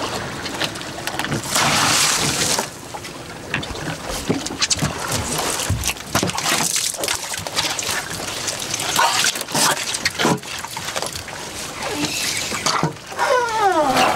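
Water splashing and sloshing with scattered knocks against a small fishing boat as a large Humboldt squid is hauled over the side and dropped into the hull. A short falling cry is heard near the end.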